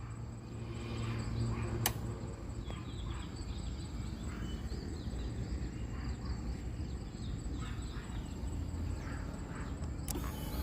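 Outdoor ambience: short high chirps over a steady low rumble, with one sharp click about two seconds in.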